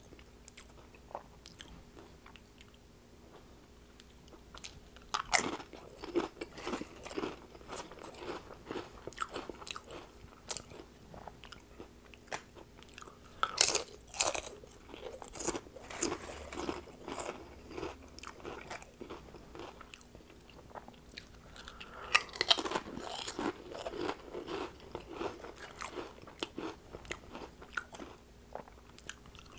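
Close-miked crunching of ridged potato chips being bitten and chewed, starting about five seconds in. Loud spells of crunches come in bursts, the loudest about halfway through and again later, with quieter chewing between.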